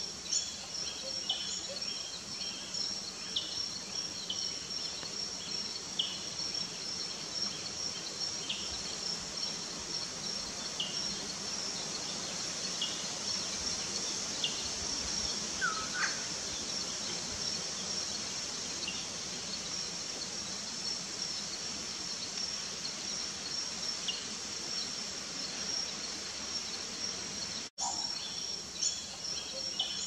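Rainforest ambience: a steady high insect drone, with scattered short bird chirps and one rising call about halfway through.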